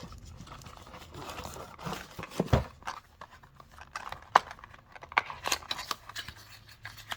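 Packaging being handled while unboxing: irregular rustling and scraping with sharp clicks, two of them louder.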